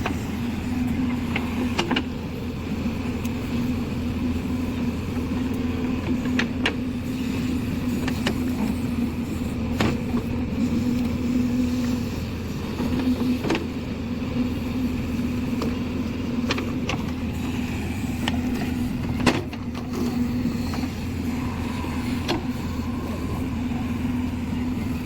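JCB 3DX backhoe loader's diesel engine running steadily while digging, with a sharp metallic knock every three seconds or so.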